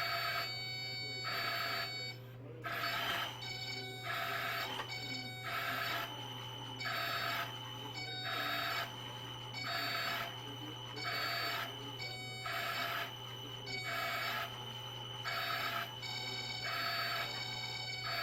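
A motor-driven machine running in a regular cycle: about once a second a whining, tonal sound switches on for half a second and off again, over a steady low hum.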